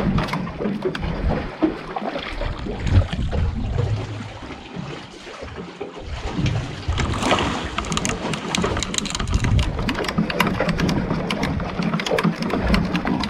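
Wind buffeting the microphone and sea water slapping against a small boat's hull as a longline is hauled in over a gunwale roller, with a fast run of sharp clicks and small knocks from about halfway through.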